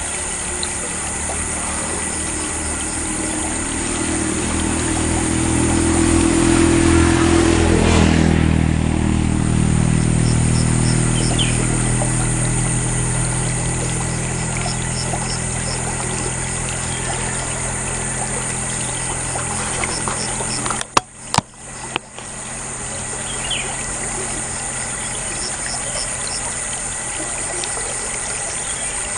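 A motor vehicle passes on the road, its engine swelling to a peak about eight seconds in and then fading, over a steady hiss of running water. A few short bird chirps come through.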